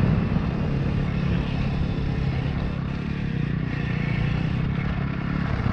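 Electric mini motocross bike (KTM SX-E 5) riding steadily along a dirt trail: a constant motor and drivetrain hum mixed with wind rumble on the helmet camera and tyre noise on the dirt.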